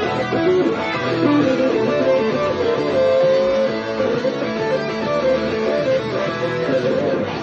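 Guitar improvising blues lead lines over a dirty blues backing track, with one long held note about three seconds in.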